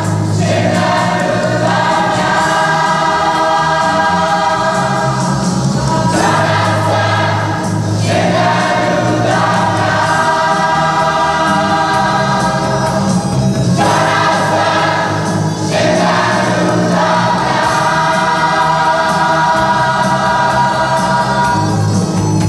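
Choir singing in long held phrases over a steady instrumental accompaniment.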